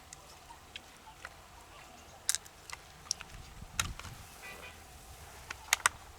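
Hard shells clicking and knocking as they are handled: a few sharp, separate clicks, a soft thud just before four seconds in, and a quick double click near the end.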